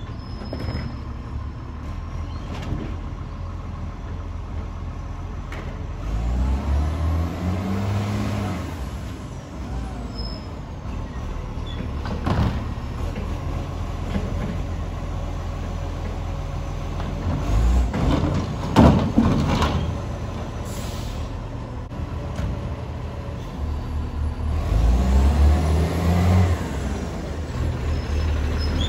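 Dennis dual-control side-loading garbage truck's diesel engine running as it works along the kerb, its pitch rising twice as it pulls away. A few sharp knocks and hisses come midway while it stops at a bin.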